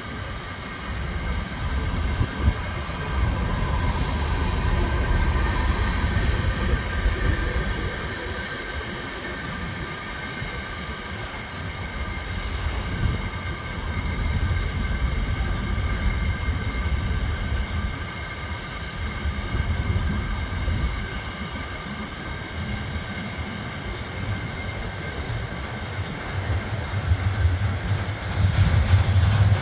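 Freight train cars rolling past: wheels on rail making a low rumble with several steady high ringing tones over it. The low rumble grows louder near the end.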